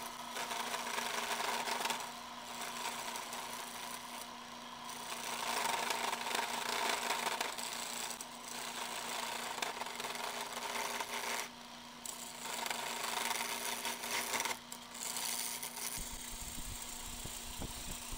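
Wood lathe running with a steady motor hum while a hand-held turning tool cuts the spinning wooden handle blank, roughing it round. The cutting noise rises and falls with each pass and drops out briefly twice past the middle.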